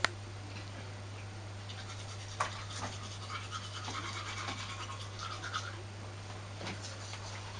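A rabbit grooming its cage-mate's head, a rapid run of soft scratchy licking strokes against fur, with a sharper click near the start and another about two and a half seconds in, over a steady low hum.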